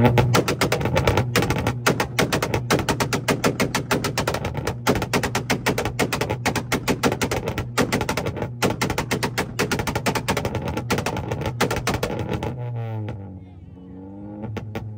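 Tuned car's engine held at a steady high rev with a fast string of exhaust bangs, several a second, cut off about twelve and a half seconds in, after which the revs fall and rise again.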